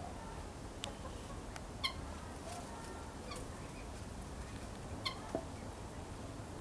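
Helmeted guineafowl giving about five short, sharp calls at uneven intervals while two of them spar on a branch. A steady low background rumble runs underneath.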